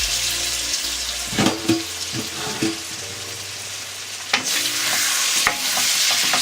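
Chicken pieces frying in masala in a pan, a steady sizzle, while a spoon stirs and scrapes through them with several sharp knocks against the pan.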